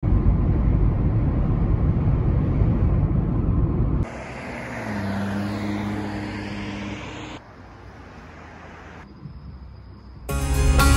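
Steady low road and engine rumble inside a moving car. At a cut about 4 s in it gives way to a quieter vehicle hum that swells and fades. Quiet night ambience with a thin high steady tone follows, and guitar music starts a little after 10 s.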